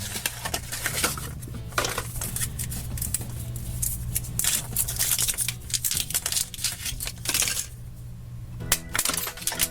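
Foil wrapper of a chocolate surprise egg crinkling and tearing as it is unwrapped by hand, with scattered small clicks and taps of handling. Soft background music underneath, with its notes clearer near the end.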